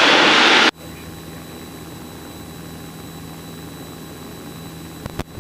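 Piper Cherokee's engine and propeller droning steadily at full power in the climb just after lift-off, heard inside the cabin. A loud hissing rush in the first second cuts off sharply.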